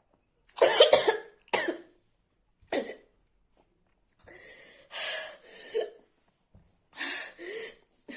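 A woman coughing three times sharply in the first few seconds, then letting out softer, breathy huffs. The coughing comes from the burn of eating hot chillies without water, while she has hiccups.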